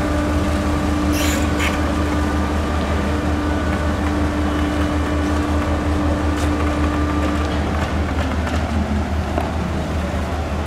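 Steady low drone of a moored ro-ro ferry's engines running at the quay, with a steady higher hum over it that stops about eight seconds in. Two short hisses about a second in.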